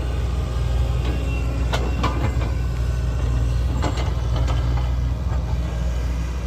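Heavy construction machine's diesel engine running steadily, with a few sharp clanks about two seconds and four seconds in.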